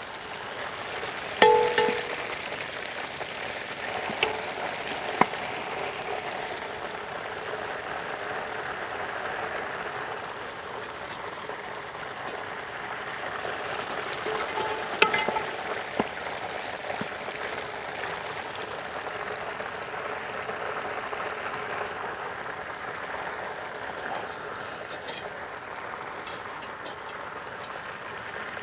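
Hot oil sizzling steadily in a large frying pan, with a few metallic clangs of a steel slotted skimmer against the pan, the loudest about a second and a half in and again about fifteen seconds in.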